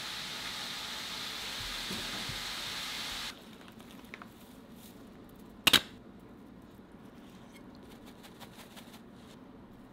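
A steady hiss that cuts off abruptly a little over three seconds in, followed by scattered light clicks and one sharp clack near the middle.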